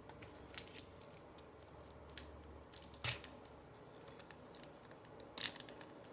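Baseball trading cards being handled and slid through the hands: scattered soft slides and clicks, with a sharper snap about three seconds in and a short rustle near the end.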